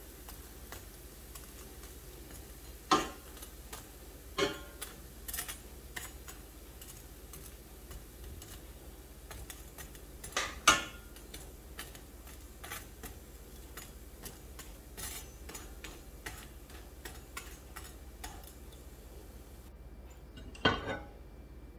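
A slotted metal spatula knocking and scraping against a nonstick frying pan as bread slices are turned and lifted out of shallow ghee. There are several sharp knocks, the loudest about ten seconds in and another near the end, with a faint crackle of the frying in between.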